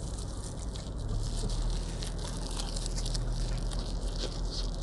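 Biting into and chewing a fried batagor dumpling close to the microphone: small crisp clicking mouth sounds, over a steady low hum that sets in about a second in.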